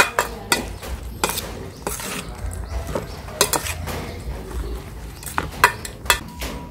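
Metal spoon tossing a chopped tripe salad in a stainless steel bowl: irregular clinks and scrapes of spoon against the bowl, with the soft rustle of the stirred salad between strikes.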